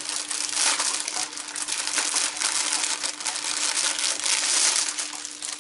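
Clear plastic bag crinkling and crackling continuously as it is handled and worked open.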